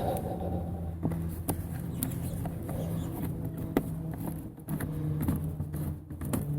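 Soft background music with low held notes that change about two-thirds of the way through, under scattered light clicks and taps of hand tools and parts being handled.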